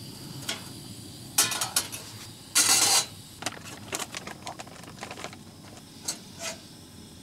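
Dumplings being set up to steam: clicks and clatter of a pot, lid and steamer being handled, with two louder scraping bursts about one and a half and two and a half seconds in. A string of small knocks follows, over the steady low hum of the stove.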